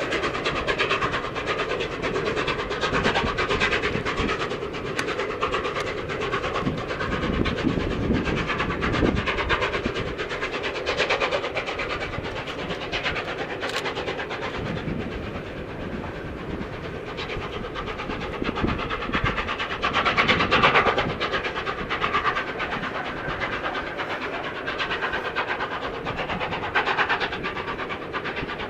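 Train hauled by the Peppercorn A1 steam locomotive 60163 Tornado, running steadily with a continuous rolling rumble from the rails. The sound swells louder about two-thirds of the way through and again near the end.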